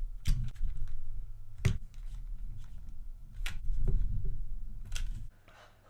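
Handling and screwing together a plastic joystick casing with a screwdriver: about four sharp clicks and knocks over low rubbing noise, which stops abruptly near the end.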